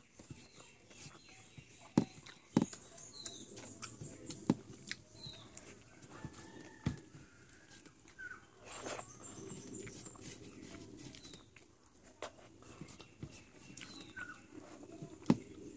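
Eating chicken up close: chewing, with scattered sharp clicks and cracks of bone and mouth noises, the loudest near the start and near the end. Short high squeaks come now and then.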